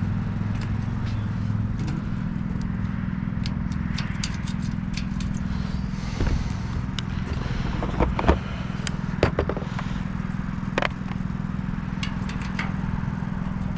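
Scattered metallic clicks, scrapes and a few louder knocks of hand work on the sheet-metal casing of a rooftop air-conditioning unit, over a steady low hum.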